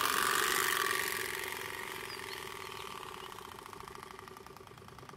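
Turbospoke V2.0 bicycle exhaust: its plastic cards are struck by the turning spokes in a rapid, engine-like clatter. It is loudest in the first second and fades as the bike rides away.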